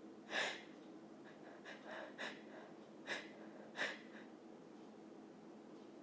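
A woman's quick, sharp breaths and sniffs, about six in the first four seconds, as a sneeze builds.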